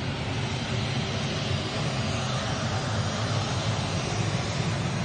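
Jet airliner on its landing roll down the runway, its engines making a steady rushing noise with a low rumble that grows a little louder.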